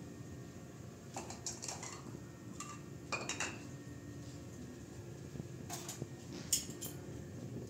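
Small bowls and a plastic tub being set down on a tiled kitchen counter: a handful of light, separate clinks and knocks, a few with a brief ring.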